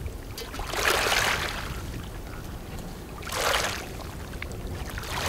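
Small waves washing onto a gravel shoreline in rushing surges, twice, with a third starting at the end, over a low steady background rumble.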